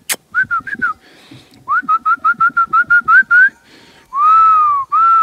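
A man whistling to call his dogs. He gives four short chirps, then a quick run of about a dozen short whistles, then long drawn-out whistles that rise and fall near the end.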